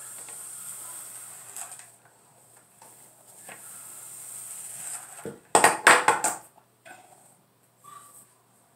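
Soft rustle of hair drawn through a flat iron and brush, then, about five seconds in, a loud second-long clatter of hard plastic as the flat iron and brush are handled and put down.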